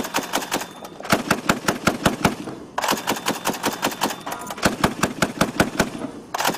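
Mk 19 40 mm automatic grenade launcher firing bursts of rapid shots, about six a second, with short breaks between the bursts.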